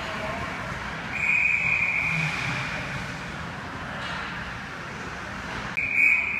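Ice hockey referee's whistle: one long blast of about two seconds starting about a second in, signalling a stoppage in play, and a second blast starting near the end, over steady rink noise.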